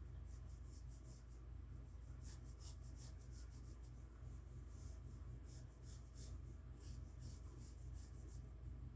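A 2H graphite pencil sketching on sketchbook paper: faint, short scratchy strokes at an irregular pace, over a steady low hum.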